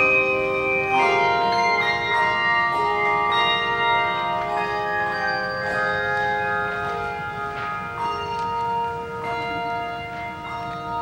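Handbell choir ringing a slow passage of chords, new bells struck every second or so and left to ring over one another, the sound slowly getting quieter.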